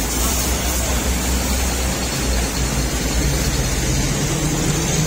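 A steady low machine drone with a hiss of noise over it, holding level throughout.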